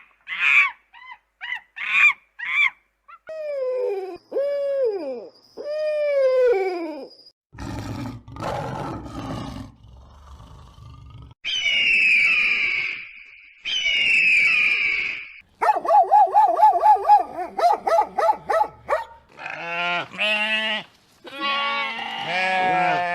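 A string of different farm animal calls, one kind after another: short calls, three falling drawn-out calls, two high-pitched calls, a fast rapid series, then deeper repeated calls near the end.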